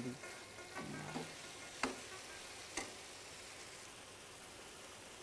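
Pasta sauce sizzling faintly in a frying pan, with two light clicks of a metal spoon against the pan about two and three seconds in.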